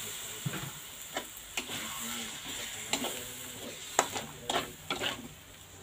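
Chili spice paste sizzling in a wok while a metal spatula scrapes and knocks against the pan several times; the sizzle fades toward the end.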